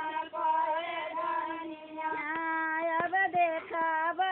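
A woman singing a Bhojpuri folk song in a high voice, drawing out long, held notes that bend in pitch. From about two seconds in, a few sharp knocks cut through the singing.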